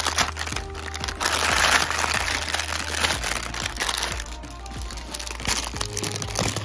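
Background music with a steady bass line, over the crinkling and rustling of the clear plastic wrappers on ice cream bars being handled. The rustle is loudest about one to three seconds in.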